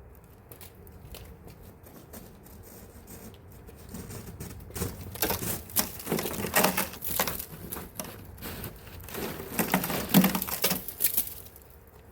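Wet, slushy snow being cleared off a car roof: a run of irregular scraping, crunching sweeps that starts about five seconds in and stops shortly before the end.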